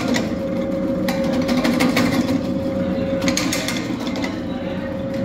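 Nobel supari (betel nut) cutting machine running with a steady hum and whine, with irregular sharp clicks and crackles as hand-fed betel nuts are sliced in its cutting head.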